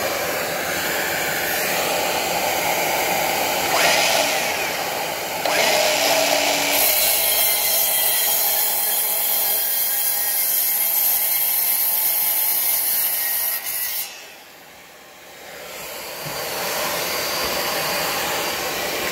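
A DeWalt DCS365 18V cordless mitre saw cuts through a length of softwood stud timber. The cut is loud with a strong high hiss for several seconds and stops abruptly. A vacuum used for dust extraction runs steadily before and after the cut.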